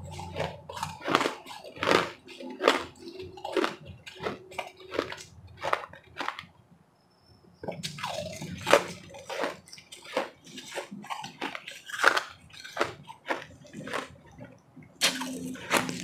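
Close-up crunching and chewing of crushed refrozen ice, sharp irregular crunches several a second, with a short pause near the middle.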